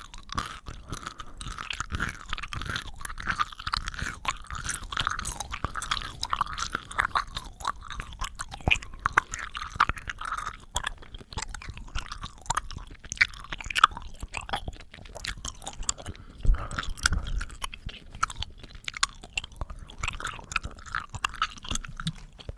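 ASMR mouth sounds made close to the microphone: a continuous run of quick clicks and smacks from the lips and tongue.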